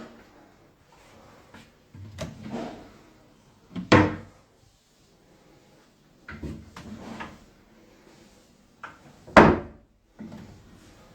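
Wooden kitchen cabinet doors and drawers being opened and shut several times, each shut a short knock, the sharpest about four seconds in and again near the end.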